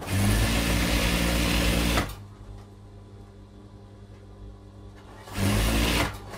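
Industrial sewing machine stitching fabric in two runs, one of about two seconds at the start and a shorter one of about a second near the end, each stopping abruptly. A low steady hum carries on between the runs.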